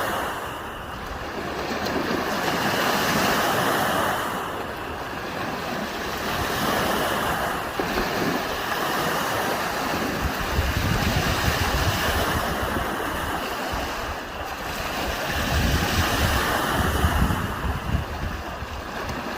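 Gentle waves washing up on a sandy beach, the surf swelling and falling back every few seconds. Wind buffets the microphone with low rumbles in the second half.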